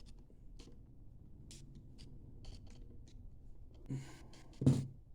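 Faint, scattered clicks and light scrapes of small metal engine parts and hand tools being handled on the bench, with one short, louder thump near the end.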